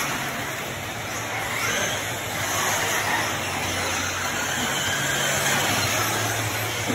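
Electric 1/8-scale RC truggies racing on a dirt track: faint rising and falling motor whines over a steady wash of noise and a low hum.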